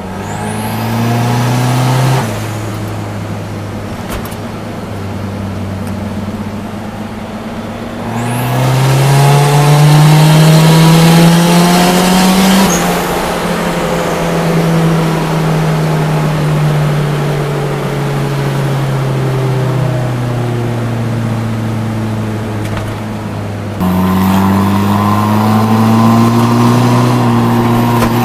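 Turbocharged 1.6-litre GA16DE four-cylinder engine of a Nissan Sentra B13, heard from inside the cabin while driving. The revs rise under acceleration, drop about two seconds in, and climb again from about eight seconds before slowly falling away. Near the end they jump up and the engine gets louder.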